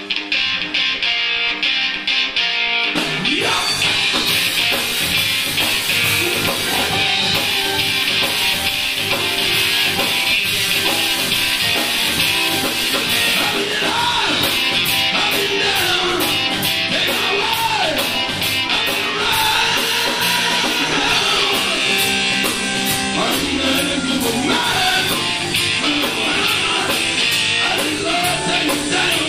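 Live rock band playing, with electric guitars, bass and drum kit and a man singing. The full band comes in about three seconds in after a short, quieter lead-in, and plays loud and steady from there on.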